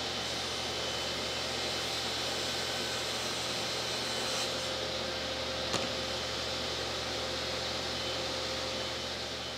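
Table saw running while a thin hardwood runner strip is ripped, a steady whir with one brief click partway through. Near the end the sound fades away as the saw winds down.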